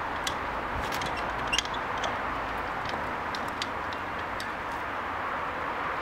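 Light clicks and clinks of wire tongs against a steel crucible as it is handled and set down on brick paving, the sharpest about a second and a half in, over a steady rushing hiss.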